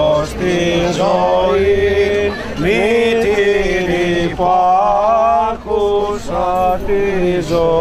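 Greek Orthodox Byzantine chant sung by men's voices, a slow melody of long held and gliding notes over a steady low drone (the ison).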